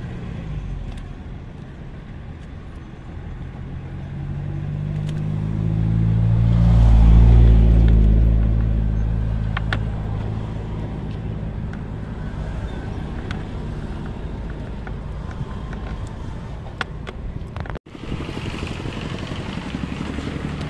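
An engine passing close by, its low hum growing louder to a peak about seven seconds in and then fading away.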